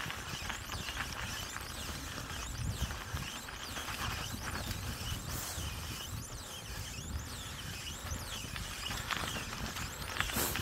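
Bicycle tyres rolling over a snow-covered dirt forest road, a steady crunching over a low wind rumble on the microphone.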